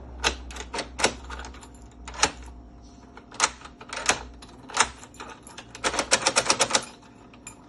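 Sharp metallic clicks and clacks of a newly fitted mortise lock being worked with its new keys. Single clicks come every second or so, then a quick run of about eight clicks near the end.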